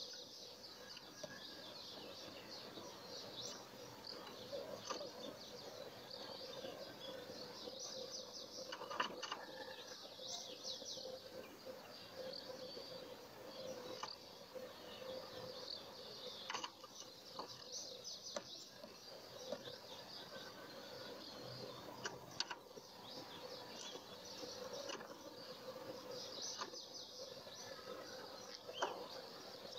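European goldfinch singing a faint, continuous, fast twittering song, with a few sharp clicks scattered through.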